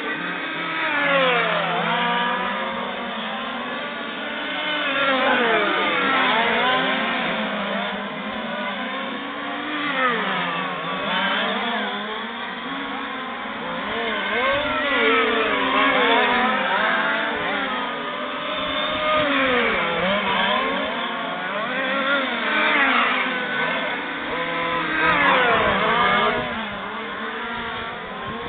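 Engines of several 1:5 scale RC racing trucks revving up and down as they race past in a group. Their pitches rise and fall over one another, and the sound swells every few seconds as the pack comes by.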